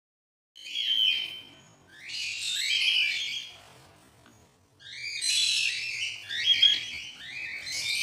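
Cockatiel chicks giving raspy, screechy calls in repeated bursts of about a second each, starting about half a second in.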